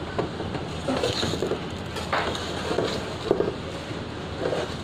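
A metal baking tray scraping and knocking against the deck of a commercial deck oven as it is gripped with a cloth and shifted around, several short scrapes and clanks over a steady background rush.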